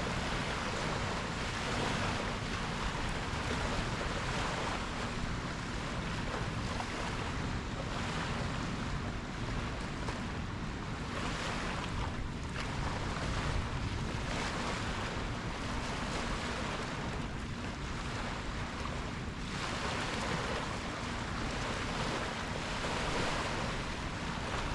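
Ocean waves washing in, a continuous rushing surf that swells and eases every few seconds.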